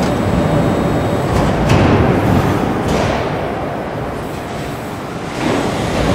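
Car assembly-line noise: a steady mechanical rumble, with a couple of short swishes about two and three seconds in.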